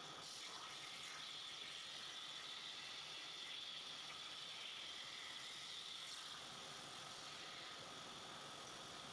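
CNC plasma cutter torch hissing steadily over steel plate, a high-pitched hiss that eases slightly after about six seconds.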